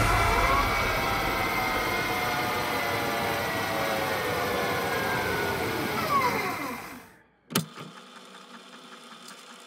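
Intro sound effect under a parody HBO Max logo card: a swelling cluster of many tones gliding in pitch, falling away and cutting off about seven seconds in. A single sharp click follows, then a faint steady hum.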